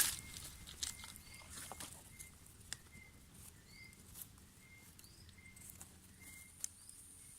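A bird calling in the forest, repeating a short, clear, single-pitched note about every half second to a second, with a few fainter rising chirps mixed in. A couple of sharp clicks stand out, about three seconds in and near the end.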